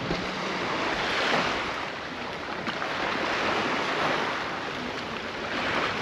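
Small sea waves washing onto the beach, a steady hiss of surf that swells three times, about every two seconds.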